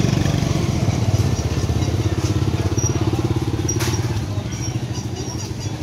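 Motorbike engine running at low speed close by, a low rapid pulsing that eases off after about three seconds as the bike moves away.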